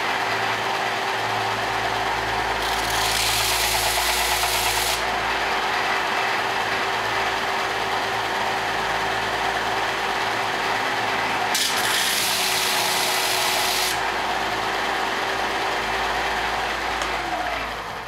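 Bench belt-and-disc sander running with a steady motor hum while a solid brass plate is ground against the abrasive belt to deburr it and give it a brushed finish. The grinding turns harsher and hissier twice, about three to five seconds in and again about twelve to fourteen seconds in. Near the end the motor is switched off and winds down, its hum falling in pitch.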